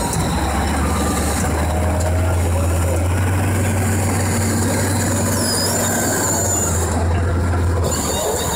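Caterpillar D9N crawler bulldozer's V8 diesel engine working hard under load while the tree spade is driven into the ground, a deep steady drone that eases off near the end, with a high squealing over it.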